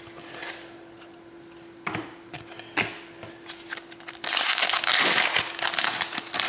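A foil trading-card pack wrapper being torn open and crinkled. A few sharp handling clicks come first, then the crinkling runs loud for about a second and a half past the middle before breaking into scattered crackles.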